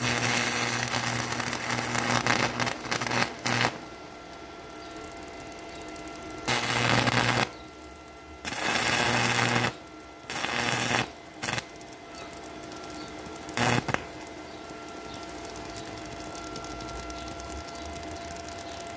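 Stick welding: the arc between the electrode rod and the steel crackles and sizzles in bursts as it is struck and broken. There is one long burst of about three and a half seconds at the start, then several shorter ones, the last about two-thirds of the way through. Between and after the bursts there is a quieter steady hum.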